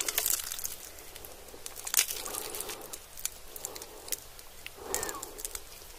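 Close-miked fried chicken being dragged through and lifted out of a pan of melted cheese: small sticky crackles and clicks of the crispy coating and stretching cheese, with one sharper click about two seconds in.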